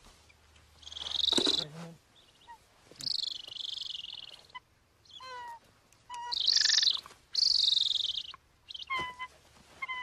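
A trapped golden eagle calling repeatedly while being handled: several drawn-out, high-pitched calls mixed with shorter, clipped yelps.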